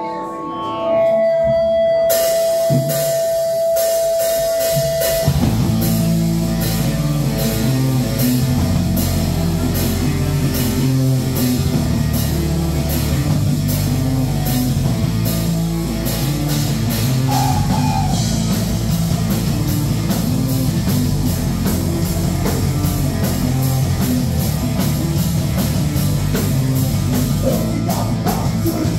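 Live rock band playing an instrumental passage: a held note opens it, drums and cymbals come in about two seconds in, and the full band with electric guitars, keyboard and drums enters at about five seconds and plays steadily on.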